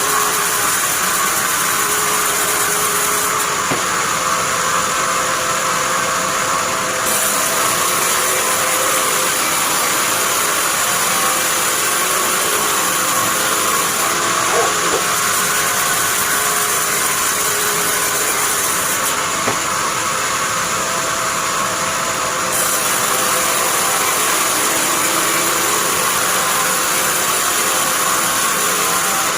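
Band sawmill running with a steady, unbroken machine noise.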